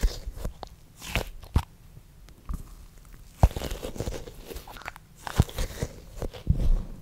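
Fingers squeezing, tapping and scratching a soft foam squishy toy right at the microphone, giving irregular crackly clicks and crunchy scrunches.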